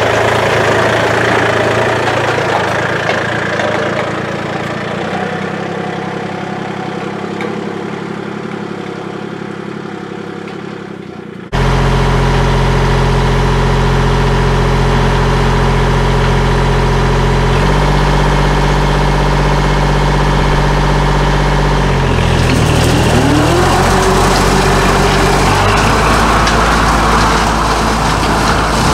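Kubota L2501 compact tractor's three-cylinder diesel engine running. At first it fades a little as the tractor moves off, then it idles steadily with a brush hog hitched behind. About two-thirds of the way in, the pitch rises as it is throttled up, and the brush hog starts cutting grass with a rougher, louder sound.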